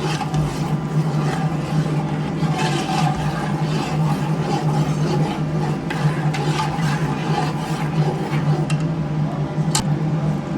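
Cooking at the stove: a steady low hum under light scraping and scattered clicks, as of a spoon stirring in a pot, with one sharper click near the end.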